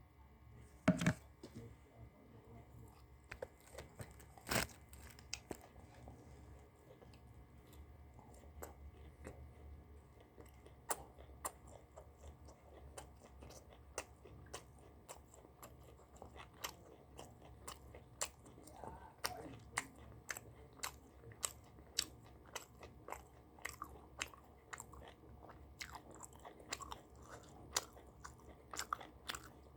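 A person chewing and biting food close to the microphone: a long run of sharp, crisp mouth clicks and crunches, about one to two a second, with louder bites about a second in and again a few seconds later.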